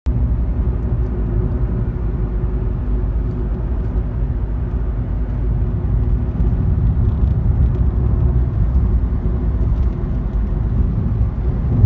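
Steady low rumble of a car driving at road speed, heard from inside the cabin: engine and tyre noise on asphalt.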